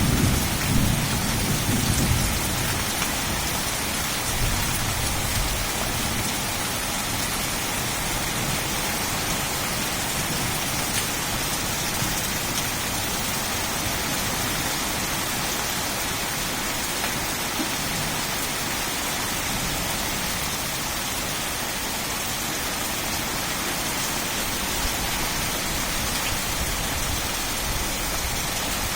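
Steady rain falling on leaves: an even hiss of countless drops. A low rumble at the start dies away over the first two or three seconds.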